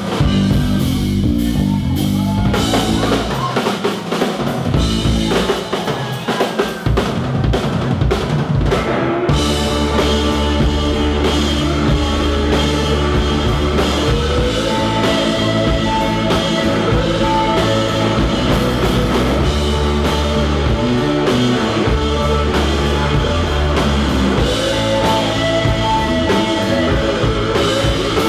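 Live blues-rock band playing, with drum kit and electric guitar. A sparser, drum-led passage opens out into the full band, with a steady bass line underneath, about nine seconds in.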